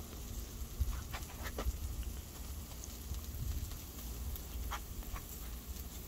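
Meat cooking on a smoking grill grate, crackling faintly, with a few sharp pops scattered through, over a steady low rumble.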